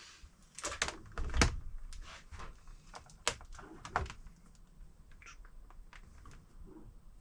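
Scattered clicks and knocks of a laptop charger and its plug being handled while the charger's output is tested, loudest about a second and a half in and again around three to four seconds in.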